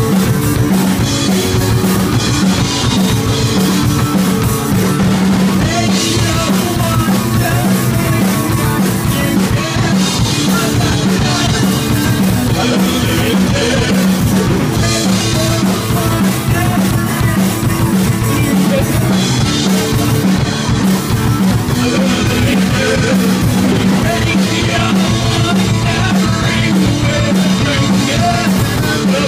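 Loud live rock band playing: electric guitar, bass guitar and drum kit.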